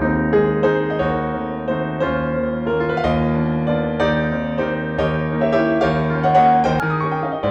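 Background music: piano notes played over a sustained low tone.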